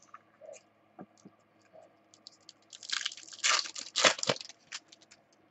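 Foil wrapper of a baseball card pack crinkling and tearing as it is opened, a dense burst of crackling about three seconds in after a few light clicks.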